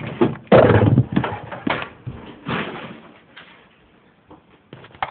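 Knocks and scrapes of a desktop computer tower being shifted and set down. The loudest knock comes about half a second in, then a few more knocks and rustles that die down toward the end.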